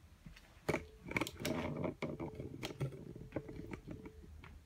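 Konica Minolta bizhub C284e office copier being switched on: a click about a second in, then a steady hum with small rattling clicks from its motors starting up for about three seconds, stopping shortly before the end.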